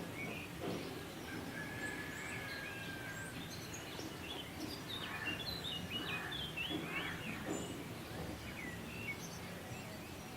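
Small birds chirping in the background: one long steady whistle about two seconds in, then a run of quick, bending chirps around the middle. Underneath is a low steady background noise, with a few faint soft thumps.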